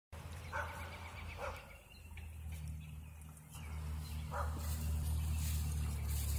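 A dog barking three times, single short barks spaced apart, over a low steady rumble.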